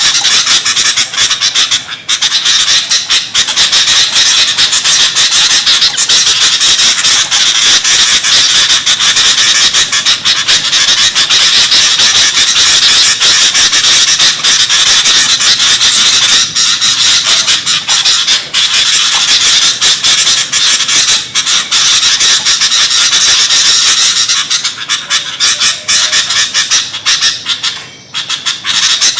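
Sooty-headed bulbuls (kutilang) in a loud, noisy chatter of overlapping high-pitched calls, briefly dropping away near the end. It is a lure call for attracting wild bulbuls.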